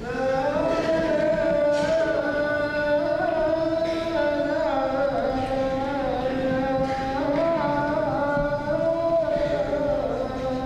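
Ge'ez liturgical chant: one long melismatic sung phrase, its held notes sliding slowly up and down in pitch, easing off near the end.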